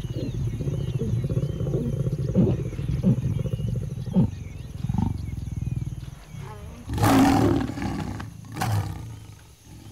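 Lions growling while mating: a long, low, pulsing growl that swells a few times, then a loud harsh snarl about seven seconds in and a shorter one a second or so later.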